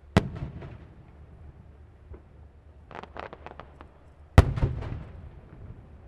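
Aerial fireworks shells bursting: a loud bang followed by a short trail of smaller reports, then a quick run of about eight lighter pops, and a second, louder bang with its own trail of reports.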